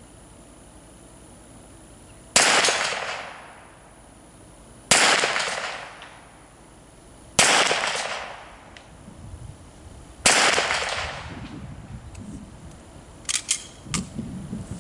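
Four handgun shots from a semi-automatic pistol, fired slowly at a distant target about two and a half seconds apart, each trailing off in an echo over about a second.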